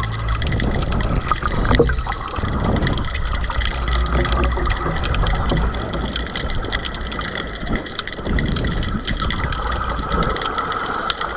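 Water sloshing and gurgling in a steady, churning wash, with many small clicks and crackles through it.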